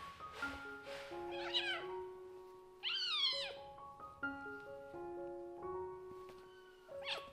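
Kittens mewing while they wrestle: a few short mews about a second and a half in, a loud, longer mew around three seconds, and a brief one near the end. Light background music plays under them.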